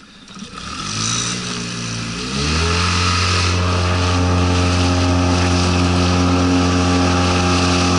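Suzuki DF20A two-cylinder four-stroke outboard with a water-jet unit throttling up. Its note climbs for about two seconds, then holds steady at high revs as the boat gets under way.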